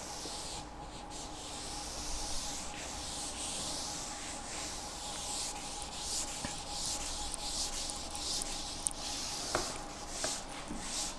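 Blackboard eraser wiped across a chalkboard in repeated strokes, a dry rubbing hiss that swells and fades with each stroke.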